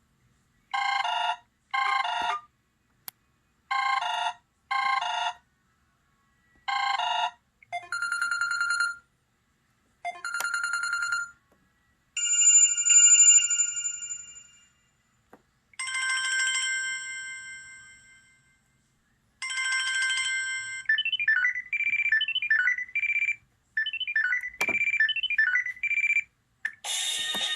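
Samsung Conquer 4G (SPH-D600) phone playing a run of its ringtones and alert tones one after another. First come warbling phone-ring bursts in pairs, then single electronic chimes that ring out and fade over a couple of seconds, then a quick run of short melodic notes near the end.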